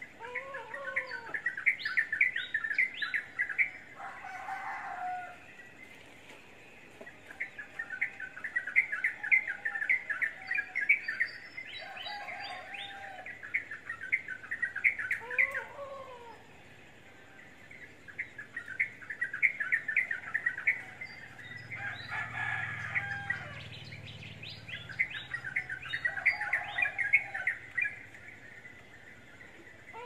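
Small pet parrots chirping in bursts of rapid, high chirps lasting a few seconds each, with short pauses between and a few lower, arched calls and squawks mixed in.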